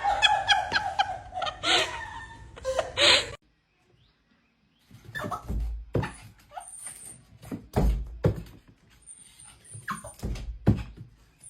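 A dog whining and yelping in high, wavering calls that stop about three seconds in. After a short gap come several thuds and knocks with a few brief whimpers.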